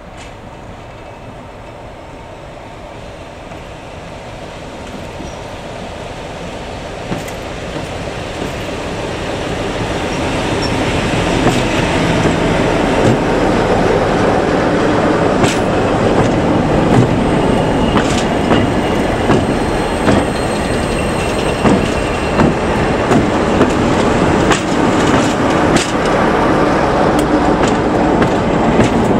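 A train hauled by Class 47 diesel locomotives approaches and passes close by, the locomotive engine and wheel noise growing steadily louder over the first ten seconds or so. It then stays loud while wheels click repeatedly on the track as the locomotives go by.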